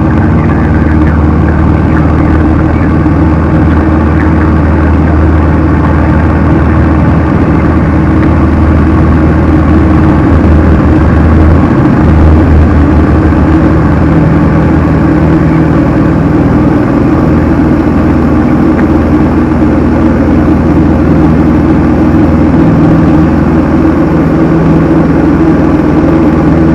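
Diamond Katana light aircraft's single piston engine and propeller running steadily at takeoff power, heard inside the cockpit during the takeoff roll and liftoff.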